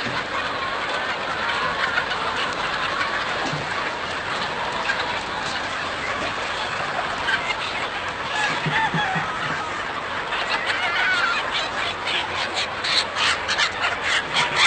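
A flock of chickens clucking and calling together in a dense, continuous din, with a run of sharp clicks and taps in the last few seconds.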